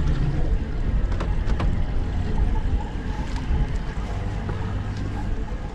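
Wind rushing over the microphone on a small open boat at sea, with water and hull noise and a few sharp clicks. A low steady hum comes in about four seconds in.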